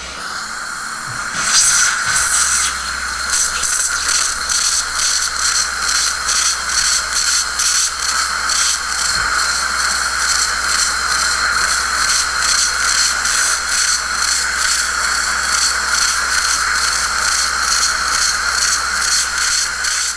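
Surgical implant motor driving a 20:1 contra-angle handpiece and a pilot drill into the upper jaw bone. It gives a steady high whine with a hiss over it, building up over the first second or two and then holding.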